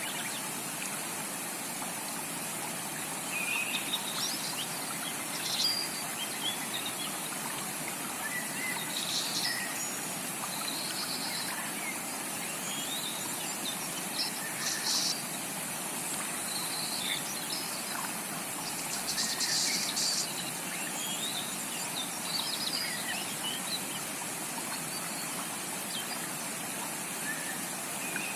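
Steady rush of a rainforest creek's flowing water, with tropical birds calling over it in short, scattered chirps and whistles.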